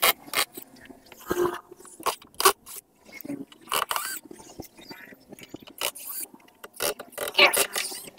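Cordless drill driver backing screws out of a 40 cm woofer's mounting rim, in short irregular bursts of drilling and scraping with scattered sharp clicks.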